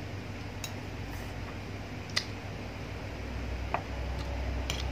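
Metal spoon and fork clicking and clinking on a ceramic plate of rice, a few scattered taps with the sharpest about two seconds in and one with a brief ring, over a steady low hum.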